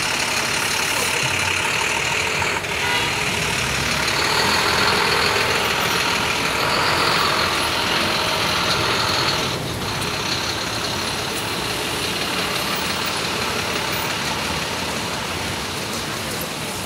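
City street traffic with a heavy vehicle's engine running close by: a dense, steady rush of engine and road noise, louder through the first half and easing off a little about ten seconds in.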